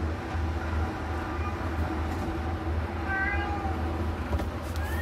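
Himalayan cat mewing: short, thin calls, one about three seconds in and another at the very end, over a steady low hum.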